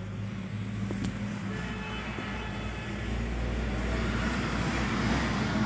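An engine running steadily with a low hum, getting louder about halfway through.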